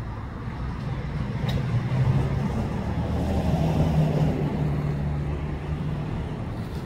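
A motor vehicle passing on the road: a low engine hum and tyre noise that swell over the first few seconds and then fade away.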